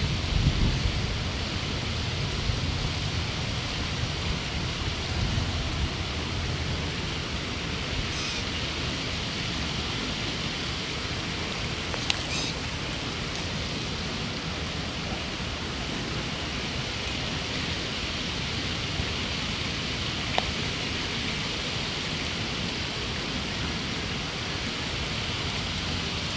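Steady outdoor background noise with no clear single source. A low rumble is heavier in the first few seconds, and a couple of faint, brief high sounds come about eight and twelve seconds in.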